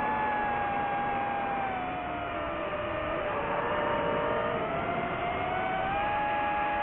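DJI FPV drone's motors and propellers whining steadily over a rush of noise. The pitch dips lower about three seconds in and rises back up near the end as the throttle changes.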